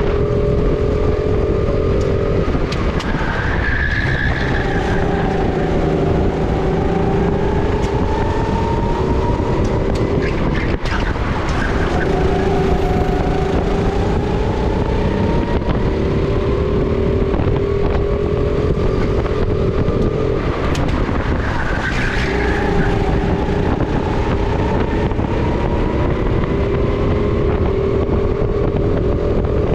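Sodi RT10 rental kart engine at racing speed, heard from the driver's seat. Its pitch climbs slowly along the straights and drops sharply several times as the throttle is lifted for corners.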